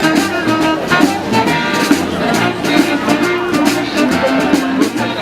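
Street band playing a funky tune with a steady beat, a pulsing bass line and a melody over it.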